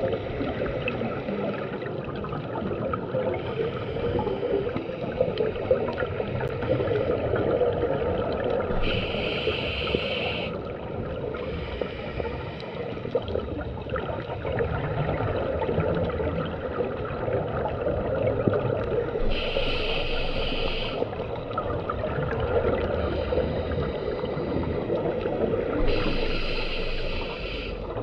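Scuba regulator breathing heard underwater through the camera housing: bursts of regulator hiss and exhaled bubbles recur every several seconds, three of them louder than the rest, over a steady muffled water rumble.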